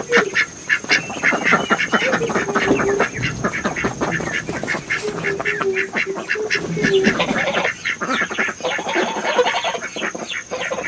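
A crowd of young poultry chicks peeping rapidly and continuously, many short high calls a second, with a few lower, drawn-out calls mixed in.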